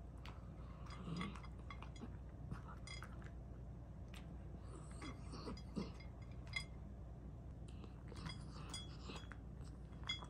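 Dog eating from a stainless steel bowl: irregular light clinks of food and muzzle against the metal bowl, some ringing briefly.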